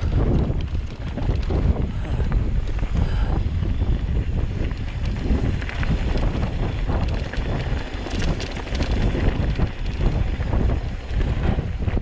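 Wind buffeting the action camera's microphone while a mountain bike rolls down a loose, rocky dirt trail, the tyres crunching over gravel with scattered clicks and rattles from the bike.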